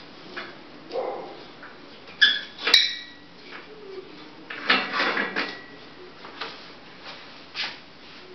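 Workshop handling noise: scattered knocks and clatter of objects being picked up and set down, with a couple of bright metallic or glassy clinks a little over two seconds in and a busier burst of clatter around the middle.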